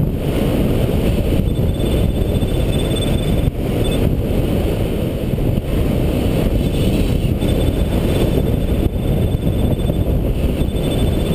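Steady low rushing of wind buffeting the microphone of a camera mounted on a hang glider in flight.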